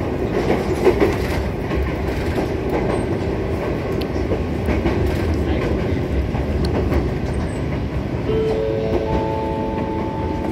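Electric train running through open country, heard from inside the carriage: a steady rumble with occasional faint clicks from the wheels. Near the end a few held tones start one after another, rising in pitch, like a short chime.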